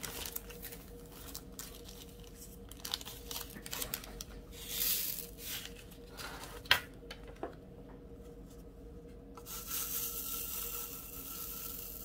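Small plastic bag of diamond-painting drills crinkling as it is handled and opened, then the resin drills poured with a short hiss into a plastic sorting tray. There is one sharp click just before seven seconds in. Near the end the drills slide with a soft hiss as the tray is tilted.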